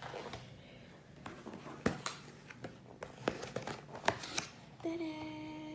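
Clear plastic clamshell takeaway container being handled and opened: a scatter of sharp plastic clicks and crackles. Near the end, a short steady tone holds for about a second.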